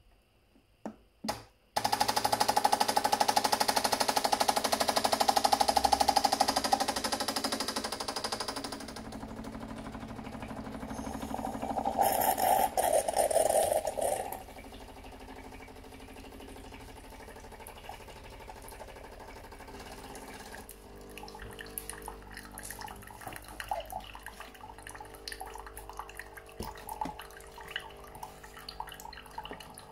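Bosch Tassimo Vivy 2 coffee machine starting up at the press of its button: two clicks, then its pump buzzing loudly in two spells as it runs a water-only first-use cycle. It then settles into a quieter hum while hot water streams and splashes into a glass mug.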